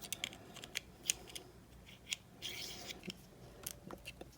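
Small plastic parts of a mini toy lightsaber being handled and fitted together: a series of light, sharp clicks, with a short scraping rasp about two and a half seconds in.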